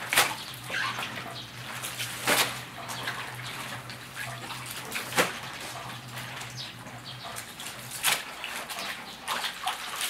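Water sloshing and splashing as brined napa cabbage halves are rinsed by hand in plastic tubs of water. A few sharp splashes come every two to three seconds.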